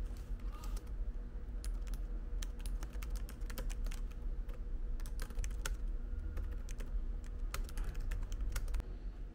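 Typing on a computer keyboard: a run of quick, irregular key clicks over a steady low room hum.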